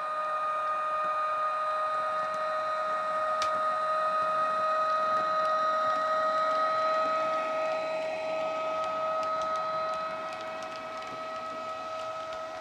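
Factory DCC sound decoder in a model ÖBB City Airport Train electric locomotive, played through its stock small speaker. It gives the electric traction whine as the train runs: a steady hum on two notes that edges slightly up in pitch and gets quieter near the end. Light clicks come in now and then, more often from about eight seconds in.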